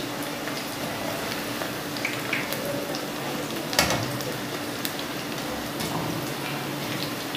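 Onion pakoras deep-frying in hot oil, a steady sizzle, as they are stirred gently with a wire skimmer; the skimmer clinks once against the pan just before four seconds in.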